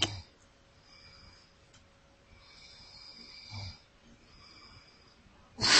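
A person breathing softly close to the microphone: three quiet breaths, the middle one the longest.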